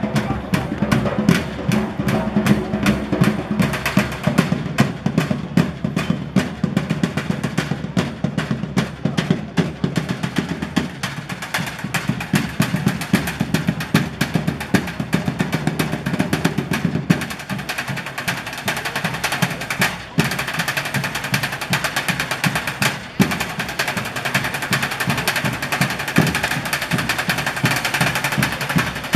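Live stomp-style drumming: a dense, fast run of drum strikes in a driving rhythm. The deep low drums drop back about 17 seconds in, leaving mostly the higher, sharper hits.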